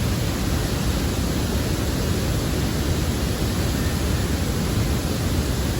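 Raging waterfall water rushing, a loud, steady, unbroken rush.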